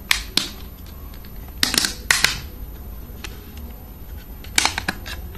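Plastic back cover of a Star TianHe H930 smartphone being pried off by fingernail, its snap clips coming loose in a series of sharp plastic clicks: a couple near the start, a louder cluster about two seconds in, and a few more near the end.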